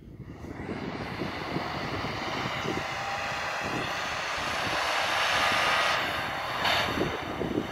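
Off-road 4x4 SUV engine revving hard under load as the vehicle ploughs through deep snow, building up over the first second and loudest about five to six seconds in.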